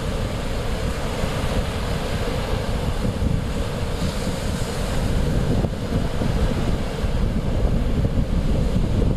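Mediterranean Sea surf washing steadily against the shore, with wind rumbling on the microphone.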